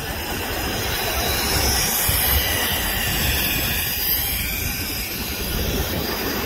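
Zip line trolley running along the steel cable in a steady rushing whir as a rider speeds past.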